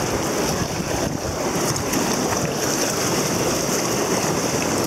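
Steady rush of river water around an inflatable raft, mixed with wind buffeting the microphone.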